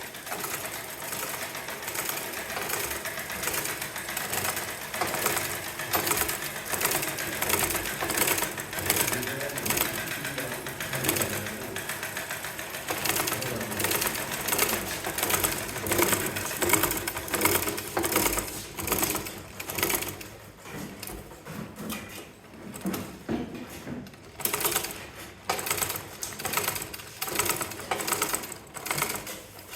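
Rapid mechanical clatter from a running machine, with closely spaced clicks repeating steadily, becoming quieter and more uneven after about twenty seconds.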